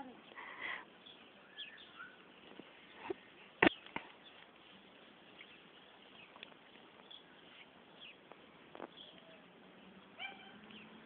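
Faint open-air quiet with a few short, scattered bird chirps, and one sharp click a little over three seconds in.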